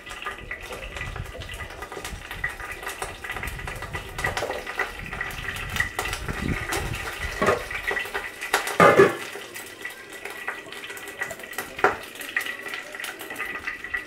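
Nigella seeds and slit green chillies sizzling and crackling in hot oil in a non-stick kadai, with sharper spitting pops now and then, the loudest about nine seconds in.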